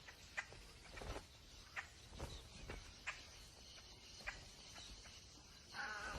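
Faint natural outdoor ambience with scattered soft ticks and clicks, and a brief pitched animal call near the end.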